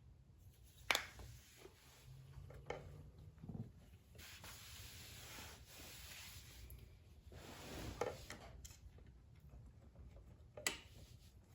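Hand work on a small generator engine's cylinder head to free a stuck valve: four sharp knocks spaced a few seconds apart, with a few seconds of rubbing or scraping in the middle.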